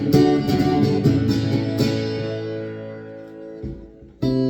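Guitar being strummed. The last chord is left to ring and fade out, and a new strum begins near the end.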